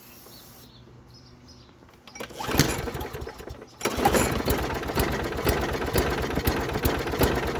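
Lawn mower's small four-stroke engine, fed extra fuel: it sputters briefly about two seconds in, dies back, then fires up about four seconds in and keeps running with a rapid, even beat.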